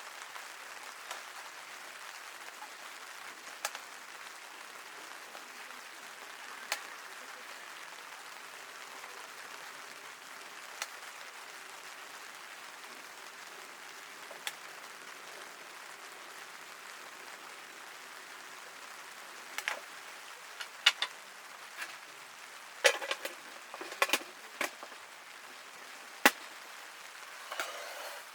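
Rain falling in a steady hiss. Scattered sharp clicks sound over it, bunching into a flurry of knocks about two-thirds of the way through.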